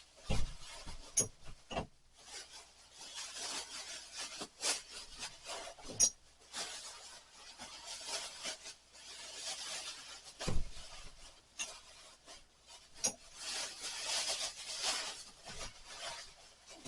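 Household things being handled and moved: rustling and rubbing that comes and goes in swells, broken by a few knocks, the loudest about half a second in and about ten and a half seconds in.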